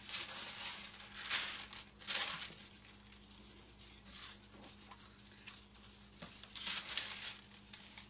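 Paper and decal sheets rustling and sliding as they are handled in a model kit box, in a few short bursts with a quieter stretch in the middle.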